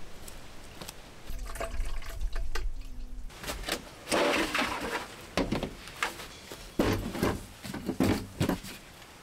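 Water running into a plastic water container, then a series of knocks and rustling as camping gear and a folding table are handled.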